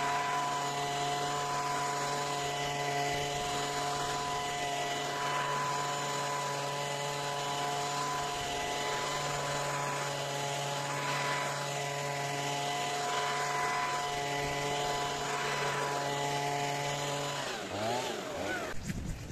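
Stihl handheld leaf blower running at a steady pitch, blowing hedge clippings across a tarmac driveway. About three-quarters of the way through, the engine note falls away as the throttle is released.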